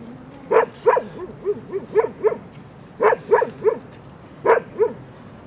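A dog barking repeatedly, in groups of two or three quick barks.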